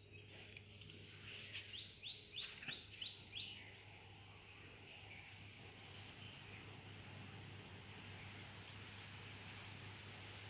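Faint outdoor ambience: a bird gives a quick run of about six sharp, high notes, about four a second, near the start, then a steady high hiss carries on.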